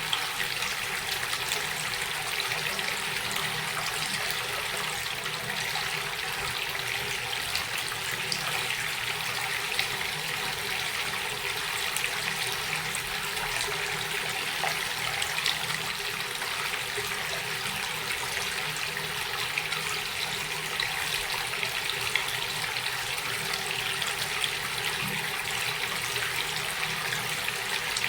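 Water running and splashing steadily, an even hiss with many small splashes through it.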